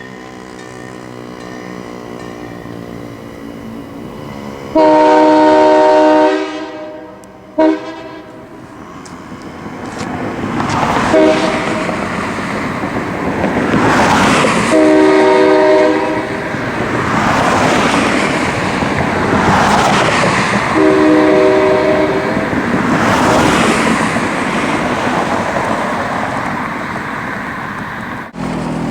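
Nathan K3HA air-powered train horn sounding its chord five times: a loud blast of about a second and a half about five seconds in, two short toots, then two more blasts of about a second each. A rushing noise builds up behind it after about ten seconds.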